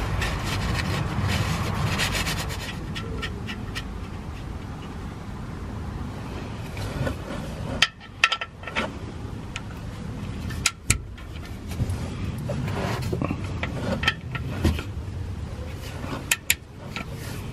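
Rubbing and handling noise as a new oil sump plug is turned in by hand. From about halfway through come a few sharp metal clicks as a 19 mm socket and ratchet are fitted to the plug and worked to tighten it.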